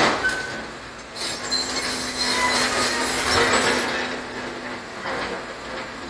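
Broken pavement chunks crash into a steel dump-truck bed from a Hidromek 140 excavator's bucket. High metallic squealing and scraping follows from about one to four seconds in as the excavator works, over the steady hum of its engine.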